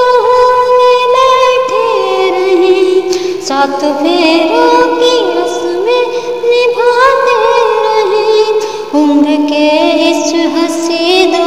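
A woman singing a Hindi film song solo, holding long notes that waver and slide between pitches.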